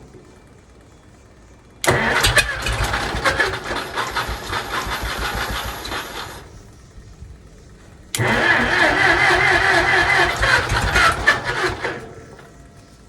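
Minneapolis Moline M602 tractor engine cranked on its starter twice, about four to five seconds each time, with an even pulsing turnover that does not catch and run: the electric fuel pump has not been switched on, so no fuel reaches the carburetor.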